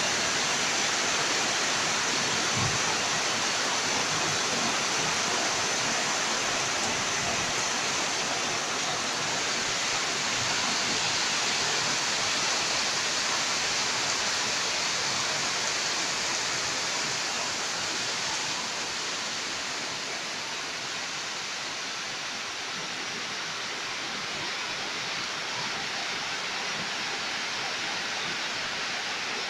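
Heavy tropical rain: a steady, dense hiss of a downpour falling on the yard, plants and roofs. It grows a little quieter after about twenty seconds, when it is heard from inside the house.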